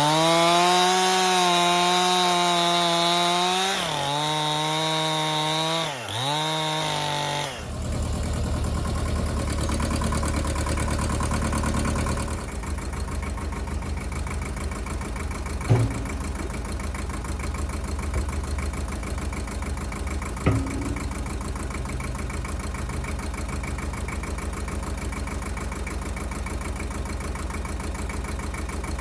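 Stihl MS261C chainsaw running at high revs, its pitch dipping twice, then cutting off about seven seconds in. After that an engine idles steadily, with two sharp knocks partway through.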